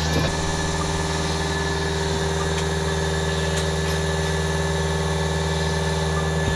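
Steady mechanical hum like an idling engine, a low drone with a held higher tone above it, unchanging throughout.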